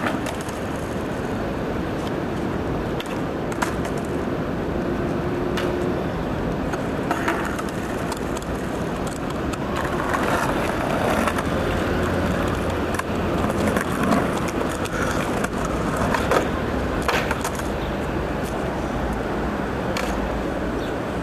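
Continuous rumbling outdoor noise with many scattered clicks and knocks.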